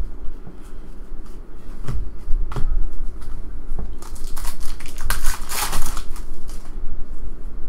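Trading cards handled and set down with scattered soft clicks, then a foil Panini Contenders Draft Picks basketball pack torn open about four seconds in, a crinkling rip lasting about two seconds.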